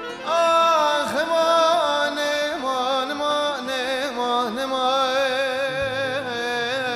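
A man singing a Turkish song into a microphone in a melismatic style, holding long notes and bending and ornamenting the pitch between them.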